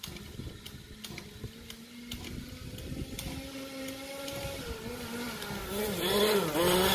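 1/5 scale RC car's 30.5cc two-stroke petrol engine running, growing louder as the car drives closer, its pitch rising and falling with the throttle near the end.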